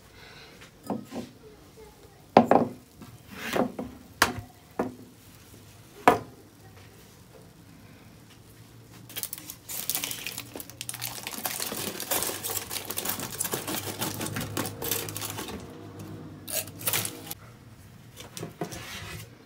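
Kitchen handling sounds: several sharp knocks as a glass and a baking tray are set down on a counter. Then several seconds of crinkling and scraping with fine clicks as roasted potato and pumpkin wedges are served off a foil-lined tray onto a plate.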